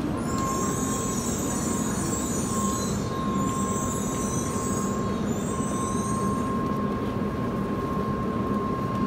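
Shinkansen train pulling slowly out of the station past the platform: a steady rumble from the moving cars, a high hiss that swells and fades several times, and a steady high tone throughout.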